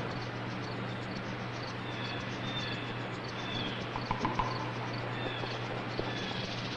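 Faint outdoor ambience on an old film soundtrack: small high chirps of birds repeating every second or so over a steady hiss and a low electrical hum, with a few light clicks about four seconds in.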